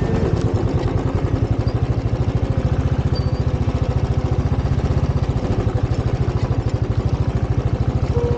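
Motorcycle engine running steadily, its exhaust beat pulsing fast and even.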